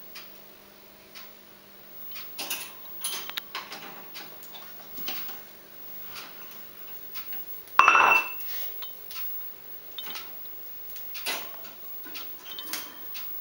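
Lovebirds moving about their wire cage: scattered light clicks, taps and scratches on the bars, perches and ladder, with one louder, sharper sound about eight seconds in.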